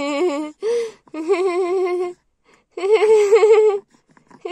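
Playful sing-song cooing: four wavering, trilling voice phrases with short pauses between them, the longest near the middle and near the end.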